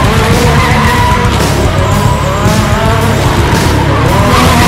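Ford Escort Cosworth rally car spinning donuts: the engine revs up and down while the tyres squeal and skid, with music mixed in.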